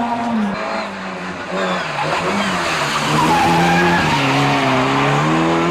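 Rally car engine pulling hard, its note dropping and climbing several times as the driver lifts off and accelerates through the stage, with tyre noise on the road surface.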